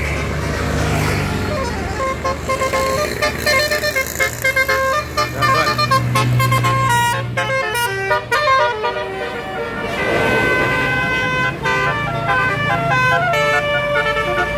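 A bus's telolet horn, a multi-tone air horn, playing repeated melodies of short stepping notes over the rumble of the bus's diesel engine.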